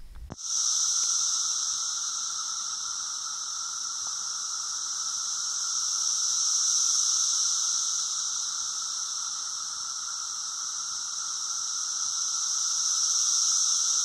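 Dense chorus of Brood IX periodical cicadas: a steady, high-pitched buzzing drone with a lower hum beneath it, swelling and easing in slow waves.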